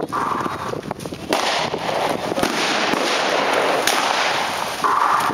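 Continuous crackle of gunfire, many shots overlapping, with sharper single reports about a second in and again near four seconds.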